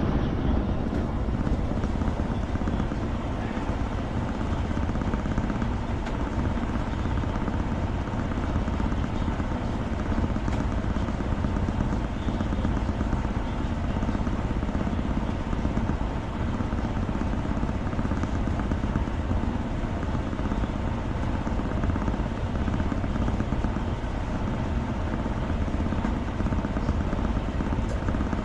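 Steady, unchanging low rumble with a faint hum through it, like a machine running without pause.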